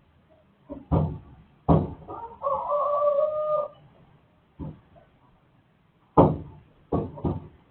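A rooster crows once for about a second and a half, in a steady low call, between a series of sharp knocks: two close together early on and three more near the end, the knocks being the loudest sounds.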